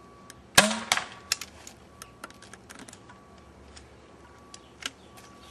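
Paintballs and a pump-action paintball pistol being handled during loading: one loud, sharp clack about half a second in, then a few lighter clicks and rattles, and one more click near the end.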